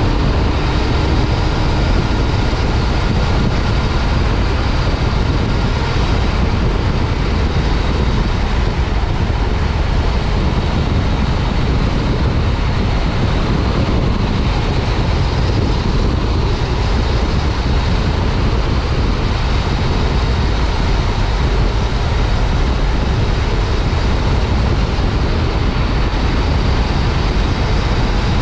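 Steady wind rush and road noise from a moving motorcycle, heard from a helmet mount, with the Yamaha FJ-09 Tracer's three-cylinder engine running at an even cruise underneath.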